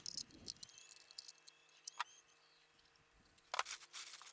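Faint, sparse clicks and clinks of small steel parts being handled, ending in a brief rustle as a bag is rummaged through.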